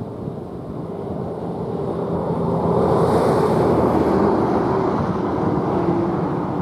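A road vehicle approaching, its engine and tyre noise rising over about three seconds and then holding loud.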